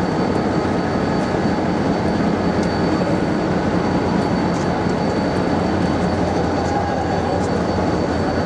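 Steady low rumble and din of a busy railway station platform beside a standing passenger train, with a faint high steady whine over it.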